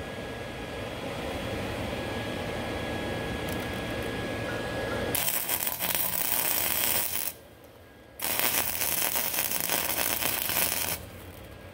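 Wire-feed (MIG) welder arc crackling on a cast iron engine block, in two runs of about two and three seconds with a short pause between, starting about five seconds in. These are short stitch welds sealing a crack in the block's water jacket, with the welder at a low-to-medium heat setting and low wire speed.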